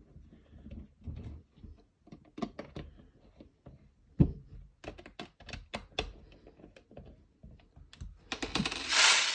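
Irregular small clicks and knocks of plastic magazine parts and screws being handled during assembly of a 3D-printed airsoft drum magazine, with a louder, longer noise near the end.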